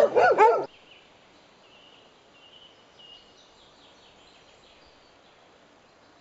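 Several farm dogs barking, loud and close, stopping abruptly under a second in; then quiet open-air background with a faint bird call.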